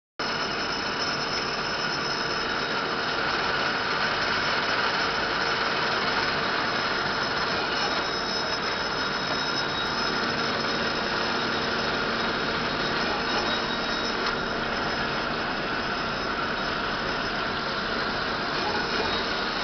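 Citizen Cincom E32 CNC Swiss-type automatic lathe running, with cutting fluid spraying over the tooling: a steady machine noise with a continuous high whine.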